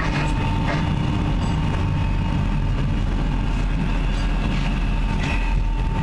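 All-weather lifeboat's engines running steadily under way, a constant low rumble with a faint steady whine over it.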